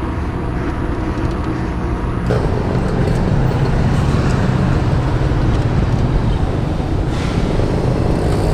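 Steady rush of wind on a GoPro microphone, mixed with tyre and road noise from a moving bicycle, heaviest in the low rumble; it turns fuller and louder about two seconds in.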